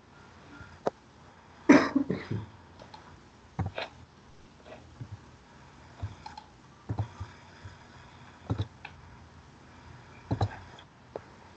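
Scattered computer mouse clicks and small knocks, with one short, louder, rougher noise about two seconds in.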